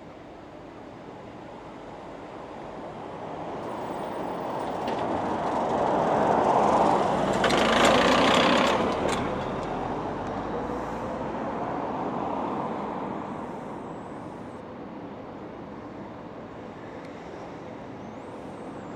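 A road vehicle passing by, its noise swelling to a peak about halfway through and then fading away.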